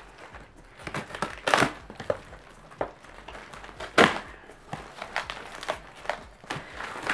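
Cardboard shipping box being pulled open by hand: irregular crunching and rustling of the flaps, with a few louder sharp cracks, the loudest about four seconds in.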